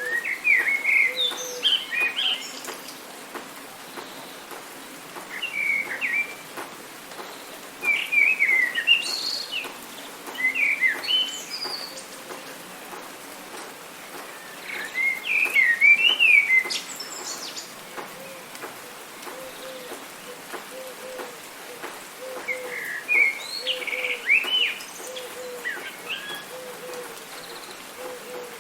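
Songbirds singing in bursts of quick, high chirping phrases every few seconds over a steady hiss of light rain, with a short low note repeating in between.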